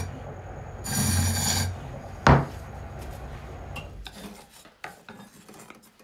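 Turning tool scraping against a dry-wood cup spinning on a Japanese-style lathe, a cut lasting under a second about a second in. Just after, a single sharp knock as the tool is set down, the loudest sound, followed by quieter scattered clicks.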